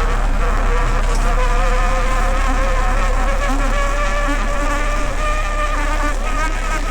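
A motor running steadily with a droning whine that wavers slightly in pitch over a low rumble.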